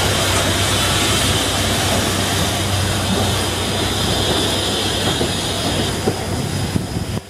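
British Railways Standard 4 steam locomotive moving slowly past close by: a steady hiss of steam from its open cylinder drain cocks over the rumble of its wheels, the hiss fading about six seconds in.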